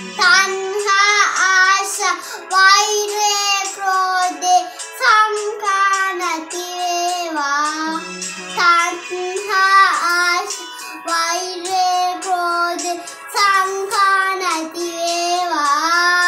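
A young boy singing a Sinhala Buddhist devotional song (bathi gee), held, sliding notes in a child's voice over backing music.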